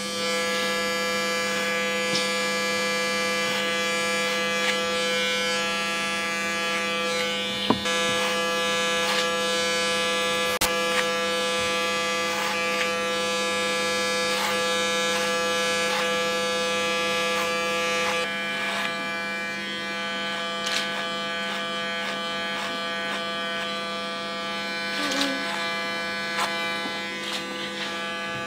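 Electric hair clipper buzzing steadily as it cuts short hair up the nape, with light clicks now and then. Its hum shifts a little about two-thirds of the way through.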